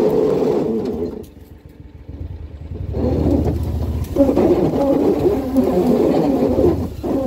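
A vehicle engine running as it is ridden. It eases off for about two seconds, starting about a second in, then picks back up.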